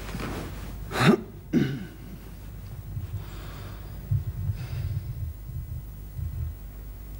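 A man coughing: two loud, harsh coughs about half a second apart, followed by quieter low throaty coughing and clearing of the throat.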